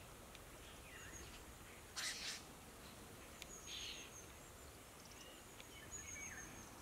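Faint calls of a starling flock: a short harsh call about two seconds in, a softer one a little under four seconds in, and thin high whistles scattered through.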